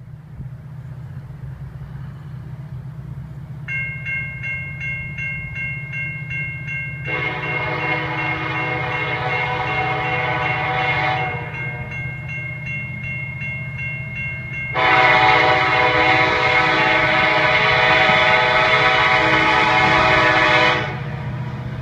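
Diesel train approaching a grade crossing: a steady low locomotive rumble, the crossing signal's bell starting to ring about four seconds in, then two long blasts on the locomotive's air horn, the second about six seconds long and the loudest.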